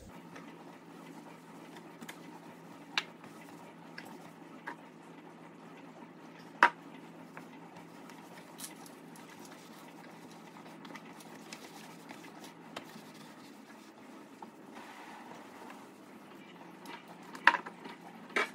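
Cloth wiping over a black sink and its chrome tap: faint rubbing, with a few light, sharp knocks, the loudest about six and a half seconds in and twice near the end.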